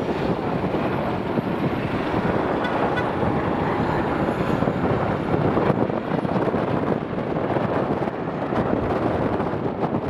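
Jet engines of an Air France twin-engine wide-body airliner running at taxi power as it rolls along the taxiway: a loud, steady, even roar with no breaks.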